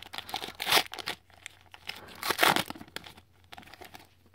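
A trading card pack's wrapper being torn open and crinkled by hand as the cards are pulled out, in irregular crackles with the loudest rips about a second in and around two and a half seconds in, tapering off near the end.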